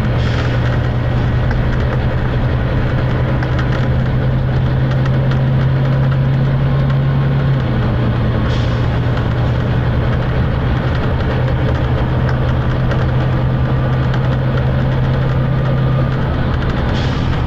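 Volvo B9TL double-decker bus's diesel engine running hard under load, heard from inside the bus: a loud, steady drone, the engine thrash. The engine note drops a little about halfway through and again near the end, and short air hisses come at the start, about halfway and near the end.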